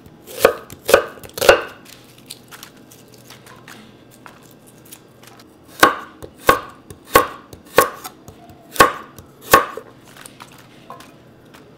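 Chef's knife chopping onion and then carrot on a wooden cutting board, each cut ending in a sharp knock of the blade on the board. Three knocks come in the first second and a half, then a lull of faint ticks, then about six more knocks from about six seconds in.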